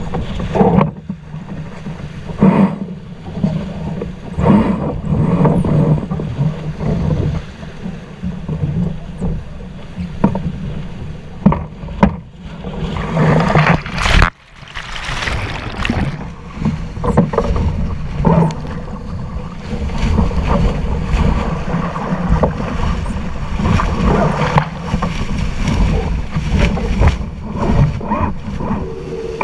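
Heavy wind buffeting the microphone aboard a C&C 30 sailboat under way, over rushing water, in uneven gusting swells. The noise drops out sharply for a moment about fourteen seconds in and then builds back.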